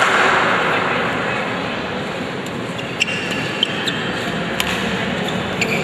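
Spectators' applause and crowd chatter in a large hall, dying away. From about three seconds in, a few sharp taps and short high squeaks come from the players' shoes on the badminton court as they set up for the next serve.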